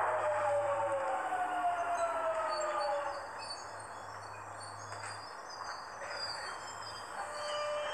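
Electric train's motor whine: several tones falling in pitch together over the first three seconds, then a quieter stretch. Near the end a steady whine sets in as the train starts to move off.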